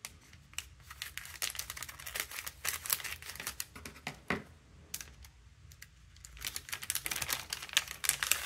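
Crinkling and crackling of a metallized anti-static plastic bag as it is cut open with scissors and handled. The crackles come in dense runs, ease off for about a second around five seconds in, then pick up again as the bag is pulled open.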